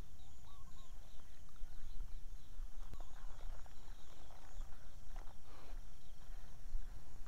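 Open-field ambience: a rapid series of high chirps, about five a second, over a steady low wind rumble on the microphone, with a few rustling footsteps about three and five seconds in.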